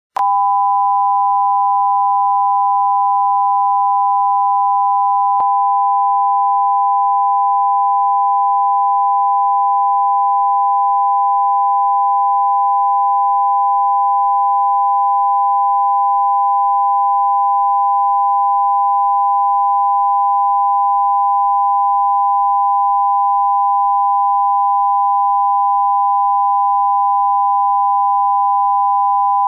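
Steady electronic test tone of a television test card: two high pitches held together without any change, with a faint click about five seconds in.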